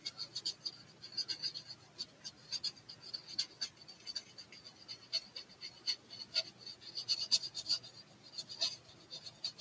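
Paintbrush stroking paint onto a model aircraft: quick, irregular, short scratchy strokes, several a second.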